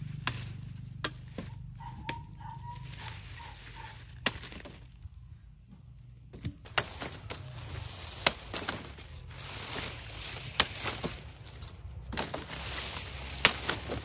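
Machete chopping sugarcane stalks: sharp single strikes at irregular intervals, a second or more apart, with rustling between them that grows in the second half.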